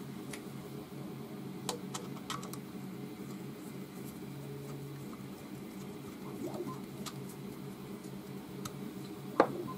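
Scattered small clicks and ticks of a hex driver turning a screw into the corner of an aluminium laser-engraver frame, over a steady low hum, with one sharper click near the end.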